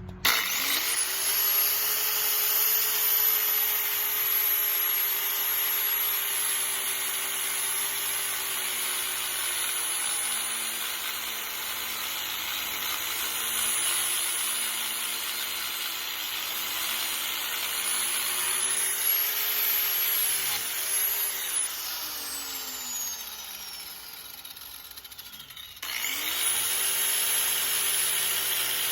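Angle grinder spinning up and grinding paint off a metal door hinge, its motor whine over a steady grinding hiss. About 21 s in it is switched off and winds down in a falling whine, then it is started again and spins back up near the end.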